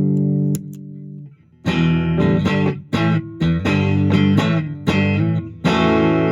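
Electric guitar played through a Y.O.S Guitar Workshop Smoggy Overdrive pedal. A held overdriven chord is cut off, and after a brief pause comes a run of short, rhythmic chord strums that ends on a ringing chord.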